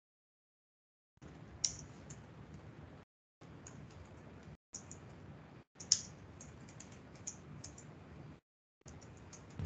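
Laptop keyboard typing: scattered key clicks in short runs, the sound cutting to dead silence between runs. A short low thump comes right at the end.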